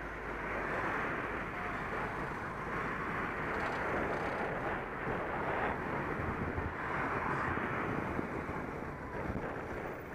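Steady rushing noise of wind over a bicycle-mounted camera's microphone while riding, mixed with the sound of road traffic.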